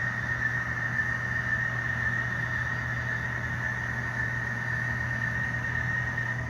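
HO scale SD40-2 model locomotive on the layout: a steady high-pitched whine held for several seconds that cuts off suddenly near the end, over a low steady hum.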